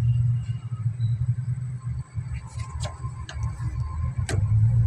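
A steady low hum, with a few faint clicks and rustles from butcher twine being pulled and tied around a raw pork loin.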